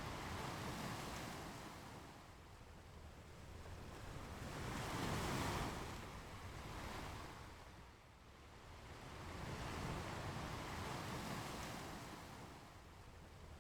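Ocean waves washing onto a beach: a hiss of surf that swells and fades in slow surges every four to five seconds, the loudest about halfway through.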